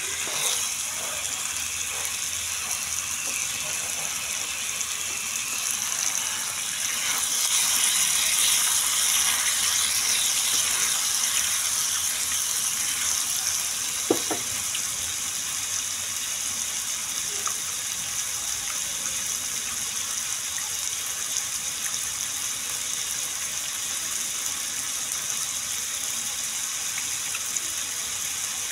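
Chicken sizzling in oil on a flat griddle: a steady frying hiss that swells for several seconds about a quarter of the way in. A spatula knocks against the pan now and then.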